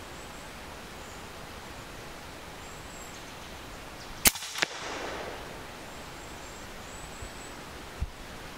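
A single shot from an EDgun Leshiy 2 .25-calibre PCP air rifle: one sharp crack about halfway through, followed about a third of a second later by a second, quieter sharp click. A small dull thump comes near the end.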